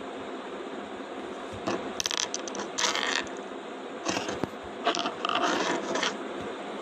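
Scratchy rustling and scraping from the phone being handled close to its microphone, in about six short bursts over a steady background hum.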